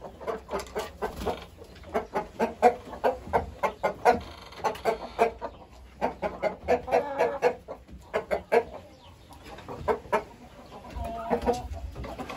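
Young Indian gamefowl clucking in quick runs of short calls, several a second, with brief pauses between the runs.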